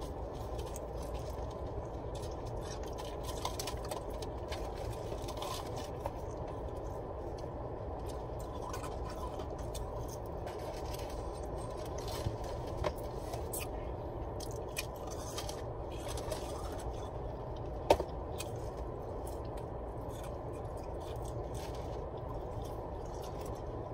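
Steady low hum of a car cabin, with faint chewing and small clicks and rustles of eating chicken nuggets; one sharp click about eighteen seconds in.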